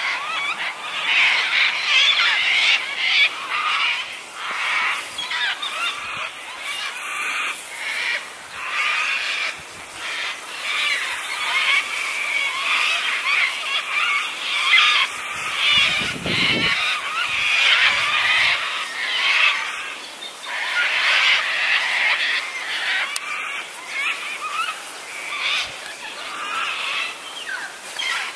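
A dense, continuous chorus of many birds calling at once.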